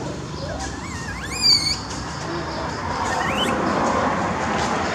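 Baby langur giving two high-pitched, wavering squeals: a longer one about a second in and a short rising one around three seconds in, over a steady background hiss.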